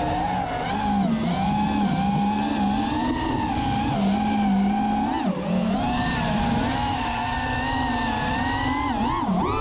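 Four T-Motor F40 II 2400 kV brushless motors spinning HQ 5x4.3x3 propellers on an FPV freestyle quadcopter, heard from its onboard camera: a steady whine whose pitch wavers with the throttle. About five seconds in, and again near the end, the pitch drops briefly and then climbs sharply.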